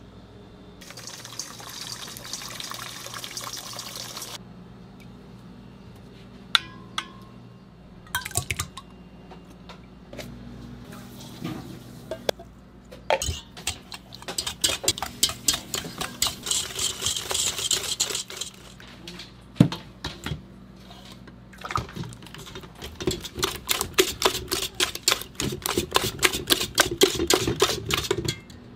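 Wire balloon whisk beating eggs and sugar in a stainless steel bowl: fast, even metallic strokes of the wires against the bowl, in two long runs in the second half. Near the start, a few seconds of pouring hiss, then a few clicks of the whisk against the bowl.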